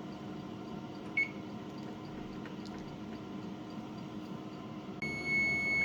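Countertop toaster oven running with a steady hum. A short electronic beep comes about a second in, and near the end a longer, steady high beep sounds, the timer signalling the end of the broil.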